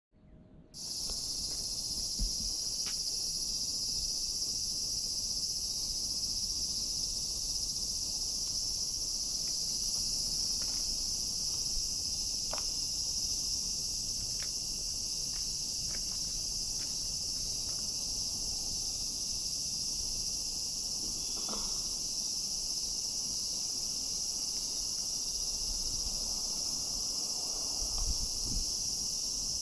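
Steady, high-pitched chorus of insects droning without a break, with a few faint clicks here and there.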